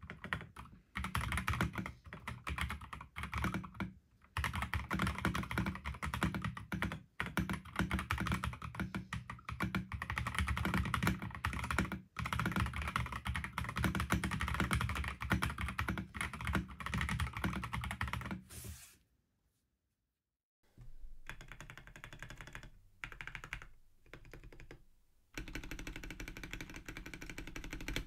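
Typing on a stock Akko PC75B Plus Air mechanical keyboard with Akko CS Air linear switches and PBT keycaps: a fast, continuous run of key strokes. About two-thirds of the way through the typing cuts out for a moment, then resumes quieter and thinner.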